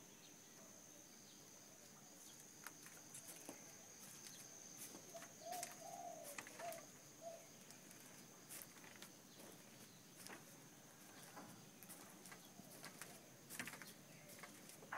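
Very quiet outdoor ambience with a bird calling a few short warbling notes about halfway through, over a faint steady high whine and scattered small clicks.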